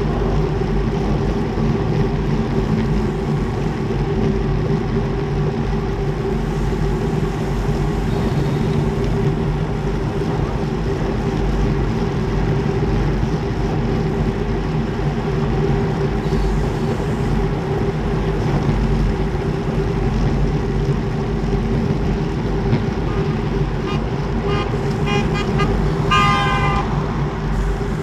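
Steady wind rush over the microphone of a camera on a road bike at racing speed, about 46 km/h, with a steady low hum under it. Near the end a vehicle horn gives several short toots.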